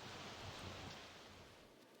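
Steady hiss of rain with a low rumble of thunder dying away about halfway through.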